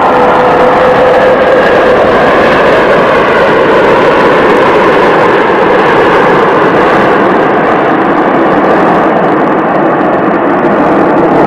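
Twin jet engines of an Airbus A330 airliner at takeoff power on its takeoff roll: a loud, steady rushing noise, with a thin whine in the first two seconds.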